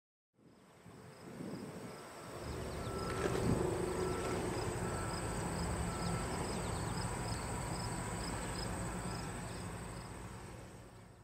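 Insects trilling steadily, with short chirps repeating, over a low steady machine hum; a single knock about three seconds in. The sound fades in at the start and out at the end.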